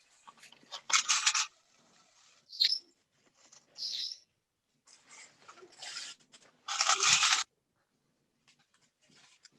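Pet parrot calling in short, separate high chirps, with two louder, harsher bursts about a second in and about seven seconds in.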